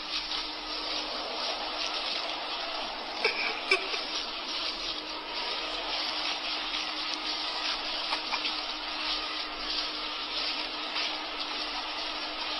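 Steady, harsh rushing noise like static, with a low steady hum beneath it and a couple of brief sharp clicks a little over three seconds in.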